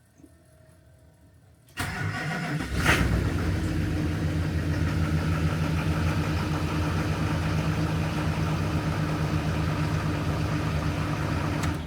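Vehicle engine cranked by its starter, catching within about a second and settling into a steady idle. It is a cold-weather start of an engine pre-warmed by a block heater left plugged in all night, and it starts easily.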